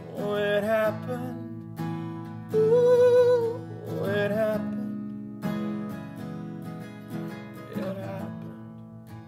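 A man singing a slow song with acoustic guitar accompaniment, holding a long note with vibrato about three seconds in.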